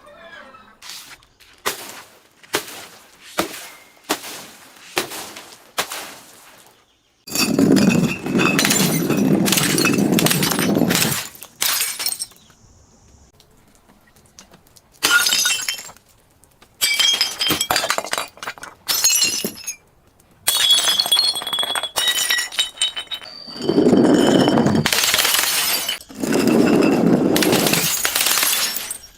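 Glass being smashed and crushed: a quick run of about nine sharp cracks, then several long stretches of dense crunching and grinding of broken glass, a few seconds each, with short pauses between.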